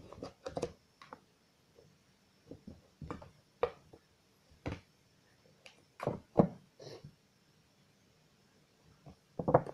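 Kittens pawing and batting at a cardboard box and its torn flap: irregular light taps and rustles, loudest about six seconds in.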